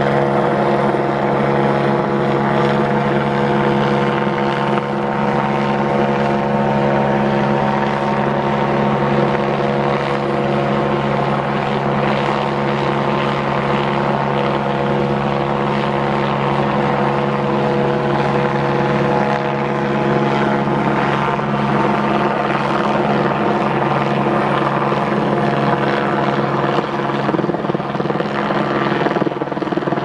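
Helicopter flying overhead with a slung work basket, its rotor and turbine making a steady drone.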